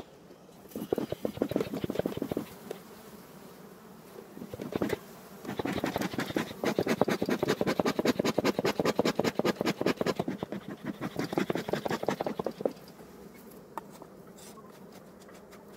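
Honeybees buzzing at an opened hive while the plastic sheet covering the frames is peeled off and the comb pocket is handled. This gives two runs of rapid crackling and scraping: a short one near the start and a long one through the middle.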